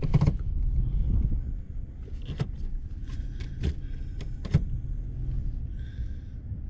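Off-road vehicle's engine idling with a steady low rumble, with a few sharp clicks and knocks over it.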